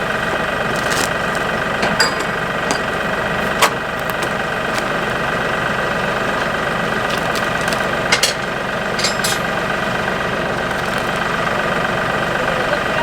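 Tractor engine running steadily close by, with a few sharp metallic clanks over it.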